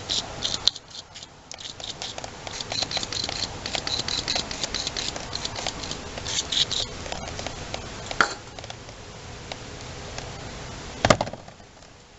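Close handling noise from a camera being set up and positioned: rapid rustling and small ticks, with a knock about eight seconds in and a louder knock about eleven seconds in.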